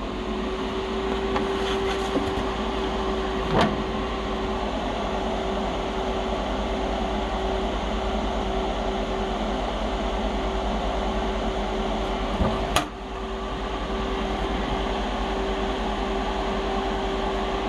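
TIG welding arc buzzing with a steady hum. It breaks off briefly about twelve and a half seconds in and then strikes up again, with a sharp click about three and a half seconds in and another at the break.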